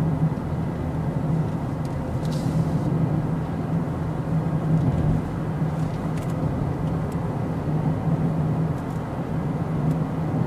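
Steady road and engine noise of a car driving along a highway, heard from inside the cabin, with a constant low hum.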